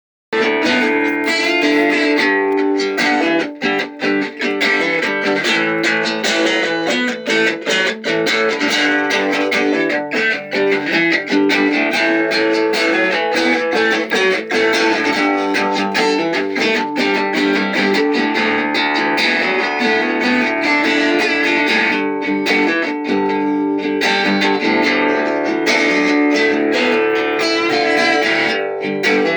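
Guitar music: plucked and strummed guitar playing a steady run of quick notes.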